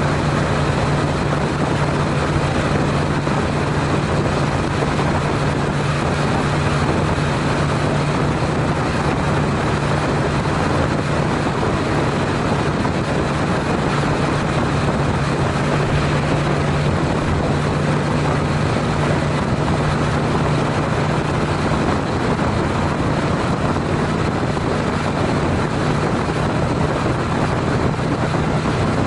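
Honda CTX700N motorcycle's parallel-twin cruising steadily at about 65 mph: a constant low engine hum under a continuous rush of wind and road noise.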